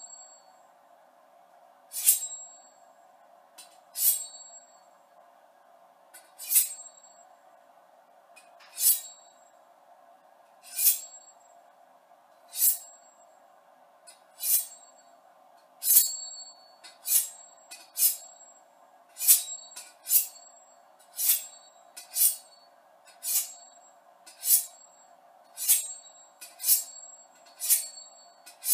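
Ka-Bar knife blade drawn along a steel honing rod, stroke after stroke, each stroke giving a bright metallic ring: the knife's own signature ring. About twenty strokes, at first about two seconds apart and quickening to about one a second.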